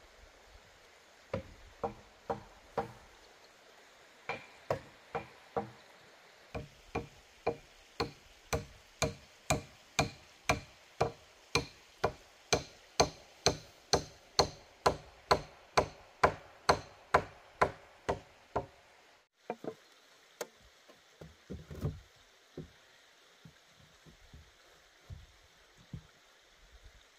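A steady series of blows on wood, about two a second, growing louder toward the middle and stopping just before twenty seconds in, with a few scattered, quieter knocks after.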